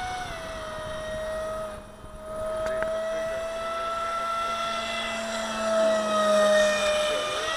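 Radio-controlled F-22 model jet's motor whining steadily as it flies, with a slight drift in pitch. It dips briefly about two seconds in and is loudest as the jet passes close overhead about six seconds in.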